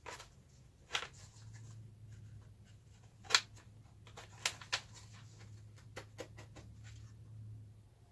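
Plastic and metal parts of a VW fresh-air blower box being handled and fitted together on a workbench: scattered clicks and knocks, the loudest about three seconds in, over a faint steady low hum.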